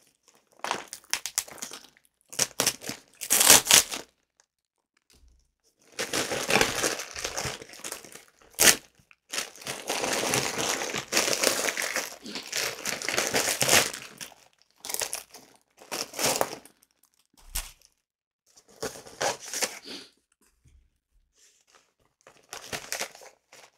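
A tough mailing bag being torn and crinkled open by hand. The rustling comes in irregular bursts with short pauses, the longest run in the middle.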